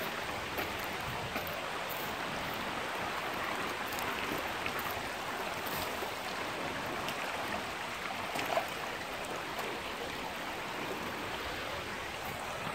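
Shallow stream running over stones, a steady rushing and babbling of water with a few faint ticks.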